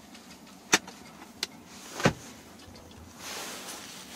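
Three sharp plastic clicks about two-thirds of a second apart, from the rear armrest's pull-out cup holder being worked, then a steady hiss that starts about three seconds in.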